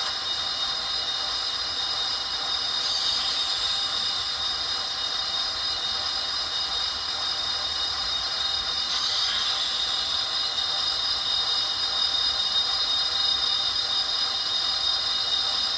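HO-scale Rapido Turbo 2 model trainset running, its sound decoder playing a steady high turbine whine made of several held tones, with a couple of brief swells along the way.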